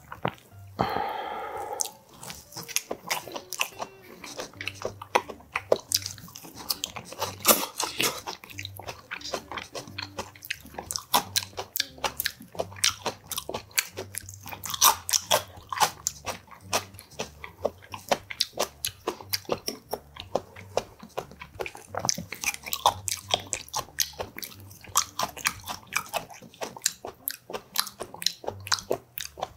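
Close-miked chewing of boiled oxtail and chives: an irregular run of wet mouth clicks and smacks, several a second, with a short voiced sound about a second in.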